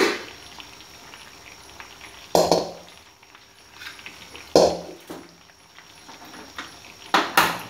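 Mutton koftas deep-frying in hot oil with a steady sizzle. Sharp clatters of pots and pans cut through it, about two and a half seconds in, about four and a half seconds in, and twice near the end.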